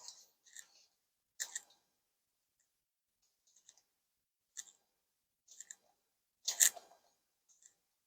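Hands rubbing and shifting over a cover laid on a patient's neck during a cervical massage: scattered brief rustles and clicks, about seven in all, the loudest near the end.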